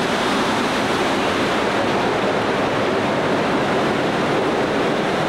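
Steady, even din of a large indoor hall: distant crowd chatter blurred into a continuous roar.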